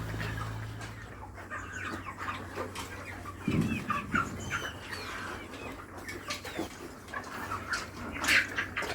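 A flock of chickens clucking, with many short overlapping calls and some higher chirps. A few dull thuds come about three and a half seconds in. A low hum stops about a second in.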